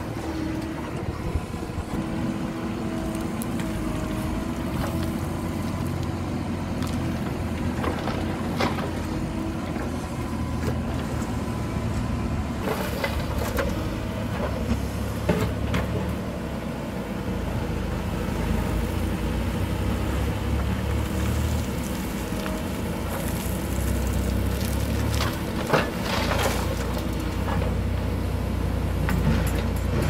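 Mahindra SX60 backhoe loader's diesel engine running steadily as the backhoe digs gravel and loads a dump truck, the engine note growing louder at times under load. Occasional knocks and scrapes come from the bucket working the gravel.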